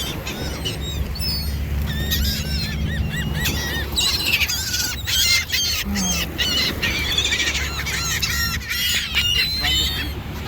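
A flock of birds calling and squawking over one another, many short arched calls overlapping and growing busier after about four seconds, over a steady low hum.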